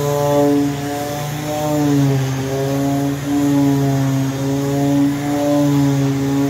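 Handheld electric sander running steadily on wood, its motor hum dipping briefly in pitch several times, sanding down a coat of wood filler on a wooden counter to make it level.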